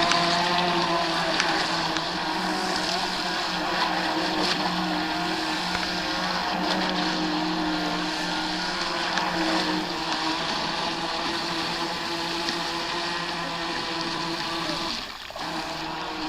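Electric RC speedboat (NDQ PX-16) running on the water: a steady motor whine over the hiss of water. It dips briefly near the end.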